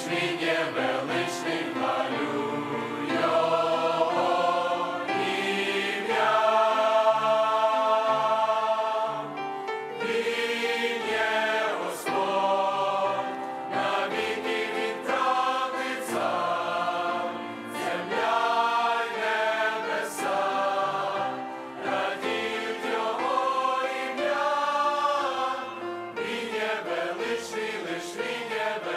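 Large mixed choir of men's and women's voices singing a Christian hymn in Ukrainian in parts, holding long notes and moving through changing chords.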